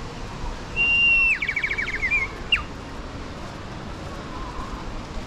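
Bird song: a loud held high whistle about a second in, breaking into a quick run of falling notes, then one more short falling note.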